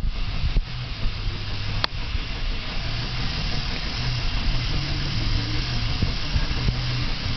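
Battery-powered toy train's small electric motor whirring steadily as it runs along a wooden track, with a single sharp click about two seconds in.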